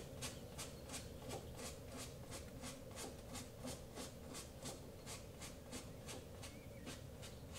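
A paintbrush loaded with black acrylic paint dabbing and flicking against a canvas, making a faint, rapid, even series of scratchy strokes.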